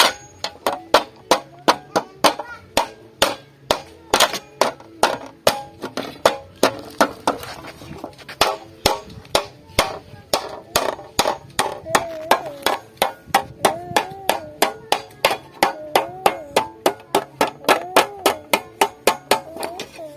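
Hammer blows on refrigerator sheet metal, struck in a quick, steady rhythm of about three sharp metallic strikes a second as the metal is worked into a pot.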